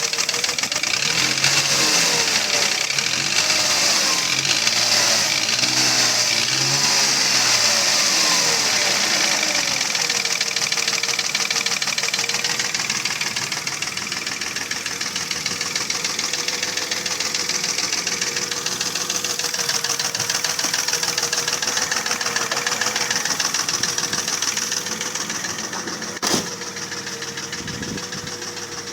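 Mercedes ML320's 3.2-litre M112 V6 running with a rapid, steady knock, which the owner puts down to piston slap: pistons loose in badly scored cylinders. One sharp click near the end.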